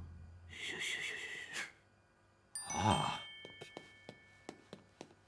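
A bright chime-like sting with several ringing tones, sudden about two and a half seconds in, followed by a run of quick light cartoon footsteps on a tiled kitchen floor, about four a second.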